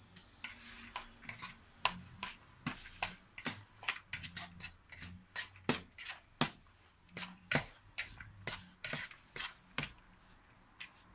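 Metal spoon stirring a wet mix of grated zucchini and herbs in a plastic mixing bowl. Irregular scraping clicks of the spoon against the bowl come about two a second.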